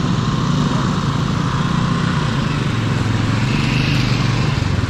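Single-cylinder-style motorcycle engine thumping along steadily at low speed, heard from the rider's own bike as it picks its way over rough ground.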